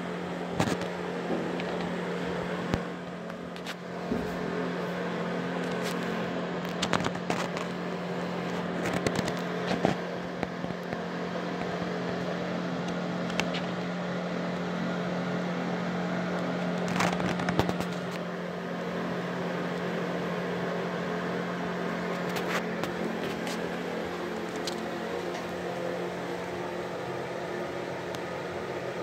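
Vintage metal ceiling exhaust fan running steadily: a constant low motor hum under an even airy rush, with scattered irregular clicks and crackles.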